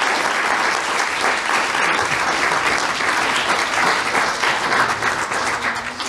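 Audience applauding, a dense steady round of clapping that begins to fade near the end.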